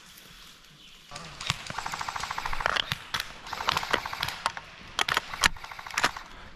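Airsoft guns firing: from about a second in, a rapid automatic burst of evenly spaced shots, then scattered single sharp shots and clacks, the loudest one a little before the end.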